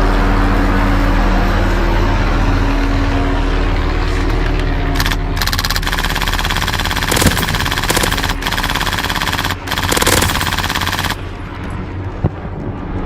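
Airsoft gun firing long full-auto bursts from about five seconds in until about eleven seconds in, with a few brief breaks, over a steady low hum.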